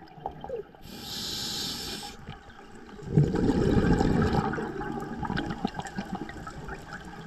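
Scuba diver breathing through a regulator underwater. A hissing inhale comes about a second in, followed a second later by a burst of exhaled bubbles rumbling out for a couple of seconds.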